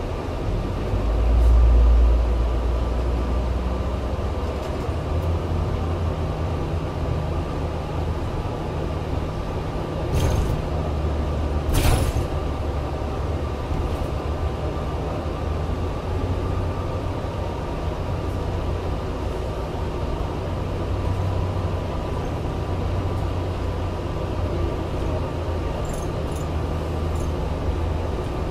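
Bus engine and road noise heard from inside the cabin as it moves along in slow freeway traffic. There is a low, louder swell about two seconds in and a single sharp click near the middle.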